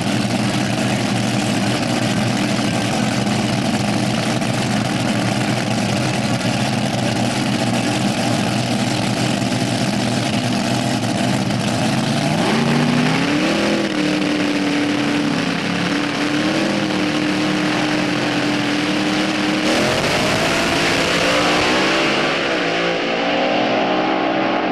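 Dragster engines running at the start line, settling into a steady high rev from about halfway through. About four-fifths of the way in the cars launch: the engine sound jumps and climbs in pitch as they accelerate away down the strip, growing duller as they pull off into the distance.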